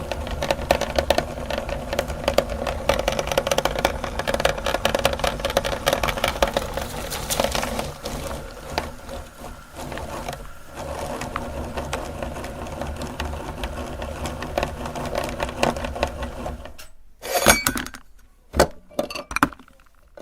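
Electric meat grinder running while grinding chocolate, a dense crackle over the steady motor hum. The motor stops about 17 seconds in, and a few sharp clinks follow.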